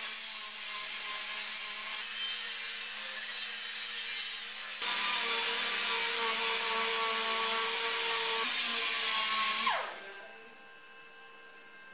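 Handheld rotary grinder whining with a gritty rubbing hiss as it grinds old wheel-weight adhesive and sands the edges of an aluminium alloy wheel. It gets louder about halfway through, then spins down with a falling whine near the end.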